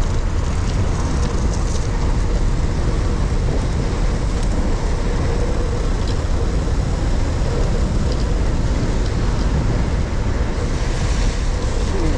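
Steady road noise while cycling in traffic: a loud, even rumble of wind on the action camera's microphone mixed with passing vehicles.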